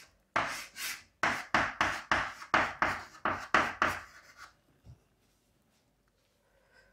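Writing or drawing strokes on a board, about a dozen quick scratchy strokes in a row, stopping about four and a half seconds in.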